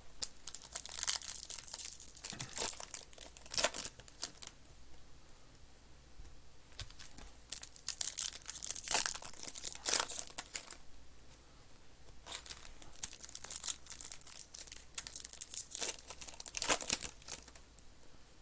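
Foil trading-card pack wrappers being torn open and crinkled by hand, in repeated short rustling bursts with brief pauses between them.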